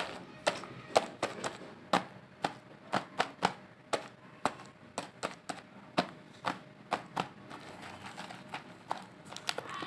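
Fingers tapping and knocking on a cardboard box of chocolate bars: a run of sharp taps about twice a second, thinning out near the end.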